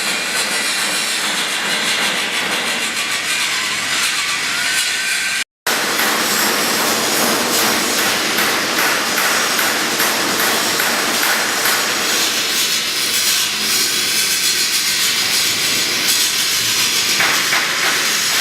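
Angle grinder fitted with a fillet-weld attachment, grinding an inside corner weld on stainless steel: a steady abrasive hiss and whir. It breaks off for an instant about five and a half seconds in.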